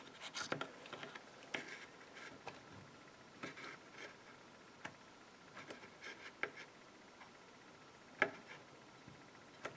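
Faint, scattered clicks and light scrapes of hands and pliers working a fuel line onto the new carburetor of a Husqvarna Rancher 455 chainsaw, with one sharper click about eight seconds in.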